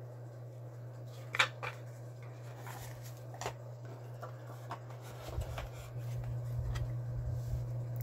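Boxed Zippo lighters being handled: light clicks, taps and rustles of their cardboard gift boxes being put down and picked up, the sharpest click about a second and a half in, over a steady low hum.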